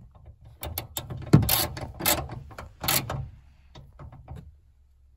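Socket ratchet clicking in uneven strokes as a bolt in a minivan's sliding door is tightened all the way down; the clicking stops about four and a half seconds in.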